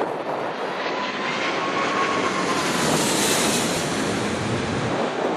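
Airliner's jet engines passing overhead: a rushing noise that swells to a peak about three seconds in and then eases, with a faint whine slowly falling in pitch.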